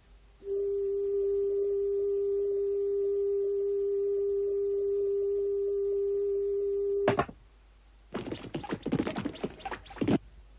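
A steady, single-pitched electronic tone held for about six and a half seconds, cut off by a sharp click. After a short pause comes about two seconds of rapid clattering.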